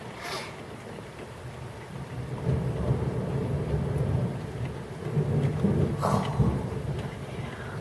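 Thunder rumbling over steady rain: a low rumble builds about two seconds in, rolls on and is loudest about six seconds in, then eases.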